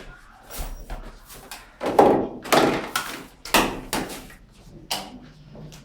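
Several knocks and thuds of household objects being handled and put away, the loudest about two seconds in, with more at roughly one-second intervals after.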